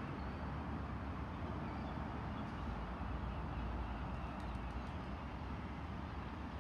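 Steady low rumble of road traffic, with a few faint bird chirps.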